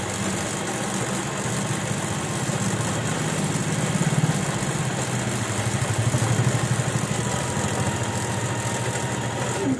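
Industrial sewing machine's electric motor running with a steady low hum, swelling louder about four and six seconds in.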